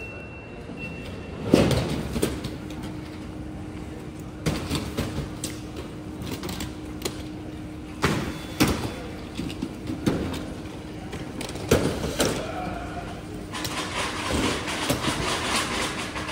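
Airport terminal ambience: irregular knocks and clatter over a steady hum, with a broader hiss joining near the end.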